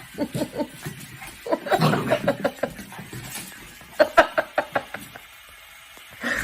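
A person laughing in three bursts of quick, rhythmic ha-ha pulses.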